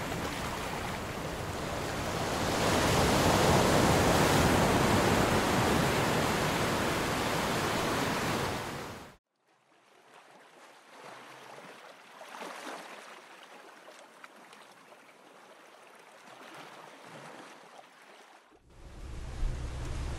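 Ocean surf washing on a beach, a steady rushing that swells a couple of seconds in. About nine seconds in it cuts off abruptly to a much softer water sound, and near the end a louder, deep rushing noise starts.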